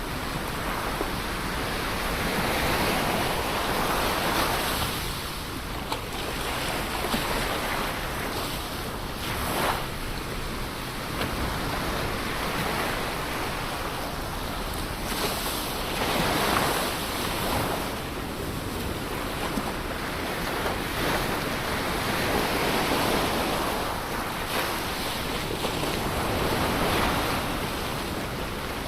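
Ocean waves breaking and washing on the shore, the surf noise swelling and easing every few seconds, with some wind.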